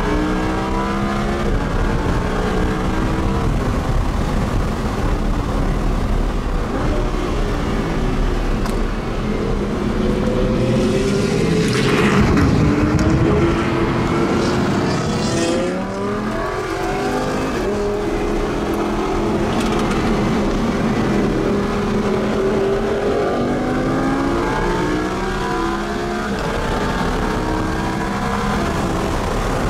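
A supercar engine accelerating hard. Its pitch climbs again and again, with a quick drop at each upshift. A louder rushing stretch comes about twelve seconds in.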